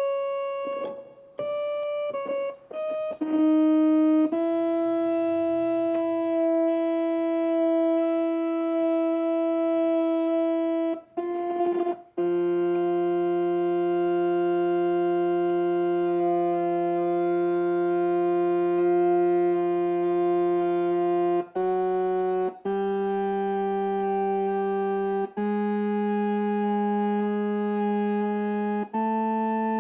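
Galanti (GEM) Caravan R6 portable electronic organ being played: a few short notes, then long, steady held chords that change every few seconds, with a bass note joining about twelve seconds in.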